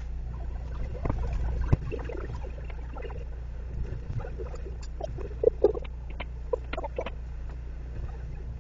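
Steady low hum of a car's engine and cabin at a slow crawl, with scattered short clicks and squeaks, the loudest a quick pair about five and a half seconds in.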